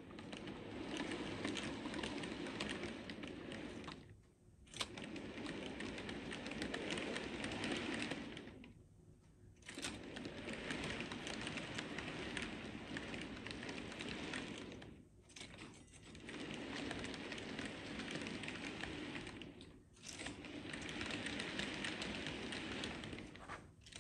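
Model railway freight cars rolling along the track, a steady rattle of small metal wheels with fine clicking, broken by a few short quiet gaps.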